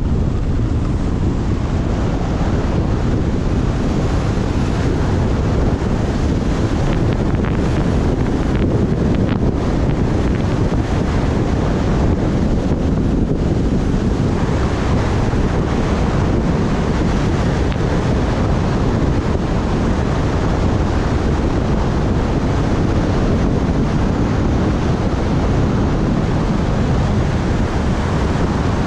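Loud, steady wind rush over the microphone of a camera carried by a skier tucked straight down a groomed run at about 50 mph.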